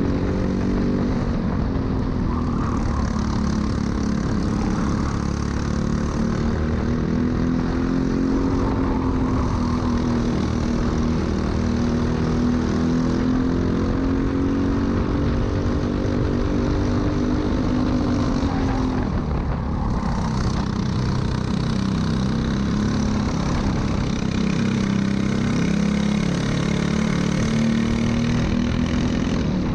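Onboard sound of a Briggs & Stratton LO206 single-cylinder four-stroke kart engine racing flat out, its pitch climbing on the straights and falling as the kart slows for corners, most deeply about 19 seconds in.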